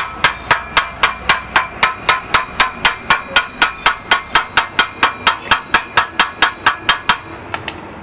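Rapid, even metal-on-metal tapping, about four strikes a second, as a small steel tool is struck against the end of a motorcycle's steel exhaust pipe, each hit making the pipe ring briefly. The tapping stops about seven seconds in, followed by two lighter taps.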